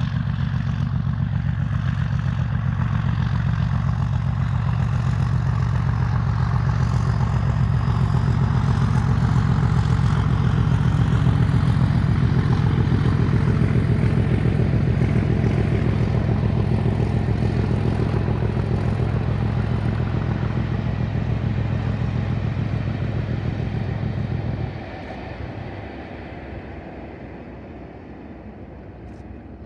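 Class 37 diesel locomotive passing with a train of coaches: a steady deep engine drone with wheel and coach rattle over it. The engine note drops away sharply near the end, leaving a fading rumble as the train moves off.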